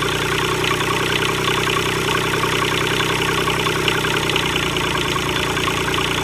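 Kubota D722 three-cylinder diesel engine idling steadily, just after being started.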